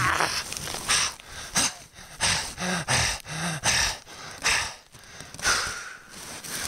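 A man breathing heavily right into the microphone: a string of short, hard breaths about every half second to a second, a couple of them slightly voiced.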